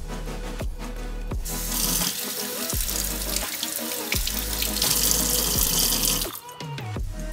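Water running from a tap into a sink, starting about a second and a half in and shutting off about a second before the end, over background electronic music.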